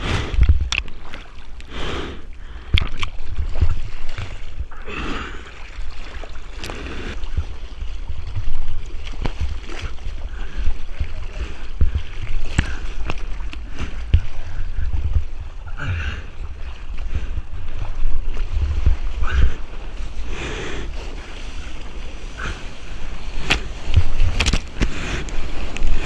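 Seawater sloshing and splashing close by, with irregular sharp splashes over a constant low rumble of surf.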